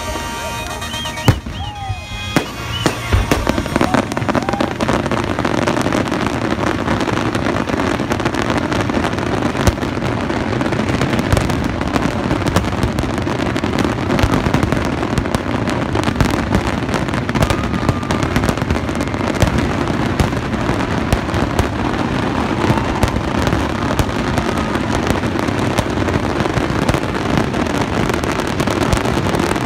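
Fireworks display: a dense barrage of aerial shells bursting and crackling, many bangs a second, after a few separate sharp bangs in the first three seconds.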